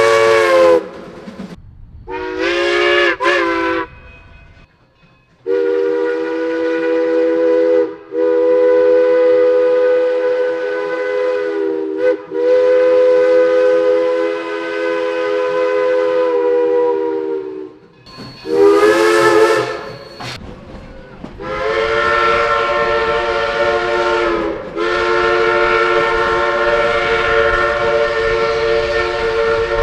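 Steam locomotive chime whistle blowing a series of loud blasts, each a chord of several notes. Several blasts slide up in pitch as they start, one long blast is held for about twelve seconds, and there is a burst of hissing steam partway through.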